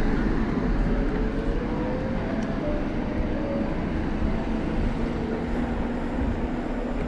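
Electric bike ridden along a town street: a steady rush of wind and tyre noise, with a faint hum that drifts in pitch.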